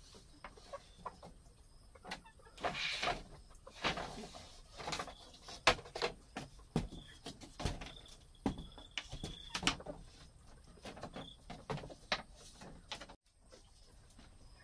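Chickens clucking, mixed with a string of short, sharp knocks and clicks.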